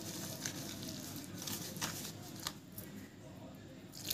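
Wire whisk stirring wheat flour and water in a plastic bowl, making scattered soft scraping, squishing strokes that ease off about three seconds in. Water starts pouring into the bowl right at the end.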